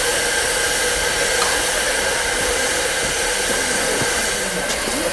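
Narrow-gauge steam locomotive standing still and venting steam in a steady, loud hiss.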